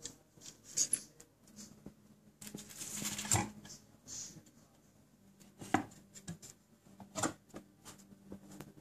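Handling noise of a small steel pocket pistol and a wooden box: scattered light clicks, a scraping rustle about three seconds in as the pistol is laid into the foam lining, then two sharp wooden knocks as the box lid is shut.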